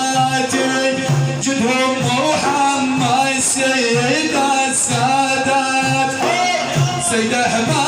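Music of an Arabic madih praise song: a continuous pitched melody, bending up and down, over a repeating low rhythm, with no sung words.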